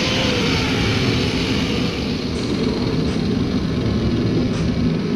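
Handheld angle grinder spinning down right at the start, after cutting the sheet-metal cab corner. Then a steady low mechanical rumble, with a few light clicks of metal handling.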